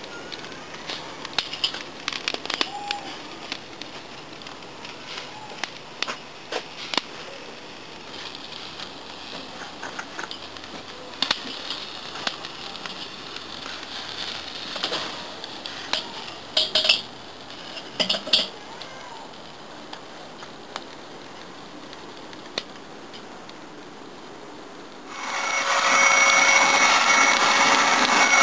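Wire grill basket clinking and rattling against the metal grate of a charcoal kettle grill. About 25 seconds in, a handheld electric blower starts, a loud steady whir with a whine, blowing air on the charcoal to fan the coals.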